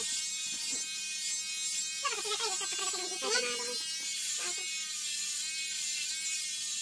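Handheld electric shaver buzzing steadily as it is run over a man's bald scalp, finishing a head shave.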